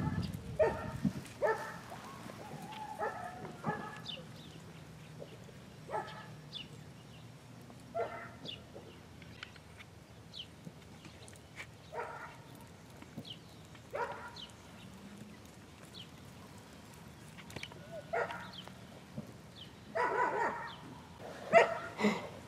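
A dog barking: short single barks every couple of seconds, then a quicker run of louder barks near the end.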